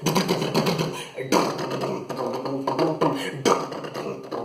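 Vocal mimicry of film background music and sound effects, done beatbox-style with the mouth: voiced tones and hums mixed with sharp clicks and percussive hits, in phrases that break off and start again about a second in and again near the end.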